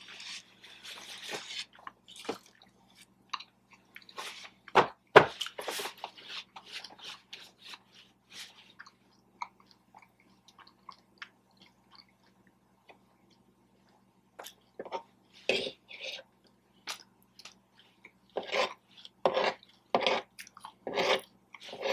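Close-up chewing and mouth sounds of someone eating a BBQ pulled pork sandwich and tater tots, with irregular wet smacks and crunches. There is a quiet spell in the middle, then louder chewing again near the end.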